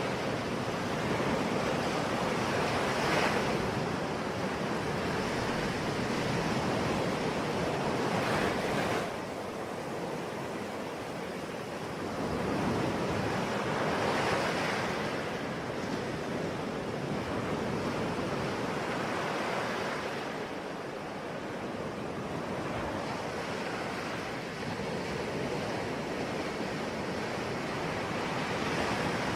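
Ocean waves washing onto a shore in a continuous surf, with a wave breaking and swelling up every five or six seconds.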